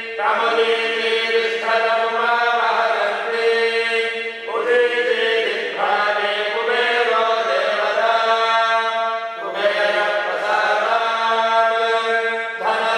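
Priests chanting Sanskrit mantras in long, sustained phrases with brief breaks between them.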